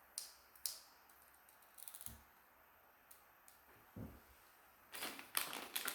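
Faint handling noise: scattered small plastic clicks and taps, a soft knock about four seconds in, then denser rustling and clicking near the end as a pack of sewing needles and its packaging are handled.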